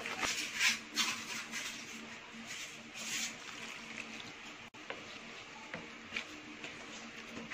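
Soft swishes and scrapes of a plastic spatula mixing water into flour in a plastic bowl, a few short strokes near the start and about three seconds in, over a faint steady hum.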